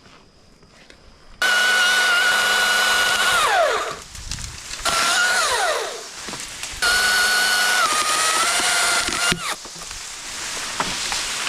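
Electric chainsaw running in three bursts. Each starts suddenly at full speed with a steady high whine, then winds down in a falling pitch as the trigger is let go.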